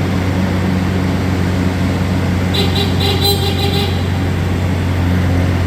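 Bobcat S550 skid steer's diesel engine running at a steady speed. About two and a half seconds in, a pulsing higher-pitched tone sounds over it for about a second.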